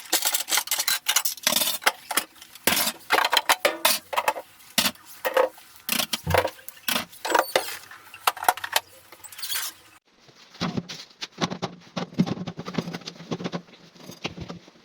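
Kitchen items being handled: containers, dishes and fridge parts clattering, knocking and clinking in quick irregular strokes. About ten seconds in the sound changes abruptly to a duller, busier run of lighter taps and rustling handling.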